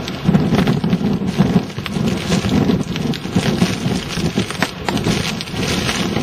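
Storm-force wind buffeting the camera microphone in uneven gusts, with a constant crackle of small hits against the microphone.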